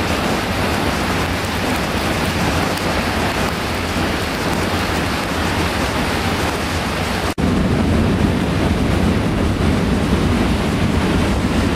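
Loud, steady rushing of the flooded Loire spilling over a dam crest and crashing into the gorge below. It breaks off for an instant about seven seconds in and resumes slightly louder and lower.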